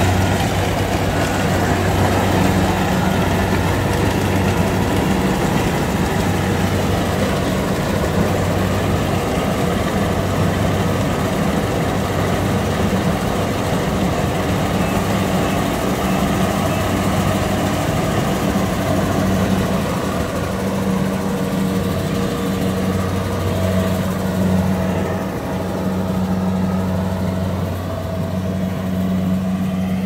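Kubota DC-70 crawler rice combine harvester, its diesel engine and machinery running steadily as it drives into the rice and cuts. It grows fainter near the end as it moves away.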